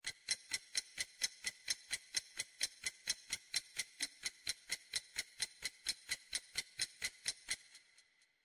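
Quiz countdown timer's clock-tick sound effect: fast, even ticks, about four or five a second, that stop shortly before the end, with a faint high tone fading out after the last tick.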